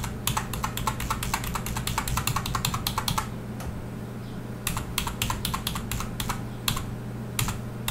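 Computer keyboard keys tapped rapidly in quick runs, with a pause of about a second and a half about three seconds in and a shorter one near the end. A faint steady low hum lies underneath.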